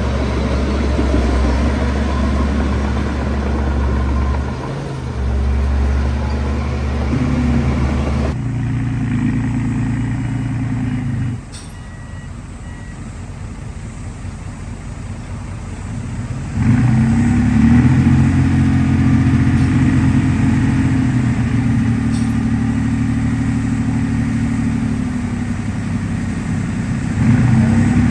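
Heavy diesel engine of earthmoving machinery running at a steady pitch. The sound shifts abruptly twice, and it is quieter for a few seconds past the middle.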